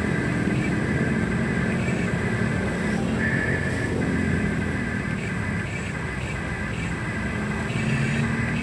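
Small electric motors of a radio-controlled toy excavator whining in short spells, starting and stopping again and again, over a steady low rumble.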